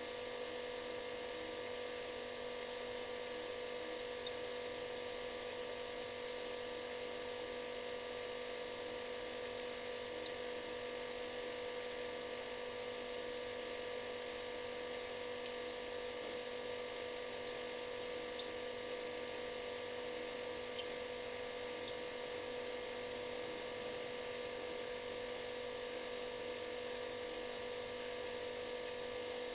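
Refrigerator running, its compressor giving a steady buzzing hum over a faint hiss.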